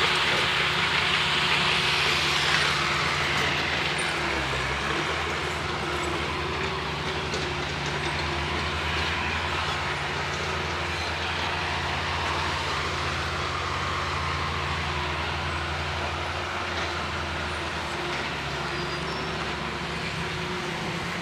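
A heavy vehicle running steadily: a low engine drone under constant noise.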